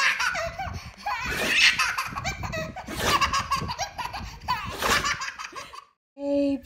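A baby laughing hard in repeated belly laughs, one burst after another, cutting off abruptly shortly before the end.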